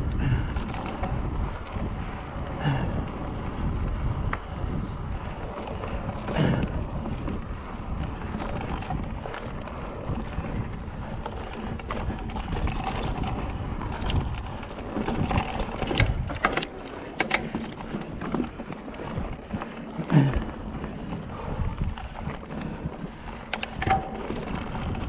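Wind buffeting the microphone, a steady low rumble broken by scattered sharp clicks and knocks.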